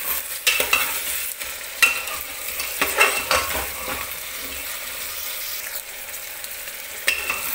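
Mutton pieces sizzling in hot oil in a metal pressure cooker, stirred with a long metal ladle that scrapes and knocks against the pot several times. The meat is being fried (bhuna) so that its water cooks off.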